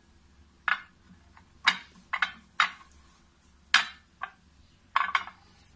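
A metal spoon clinking against a small plate, about eight short, sharp clinks at uneven intervals.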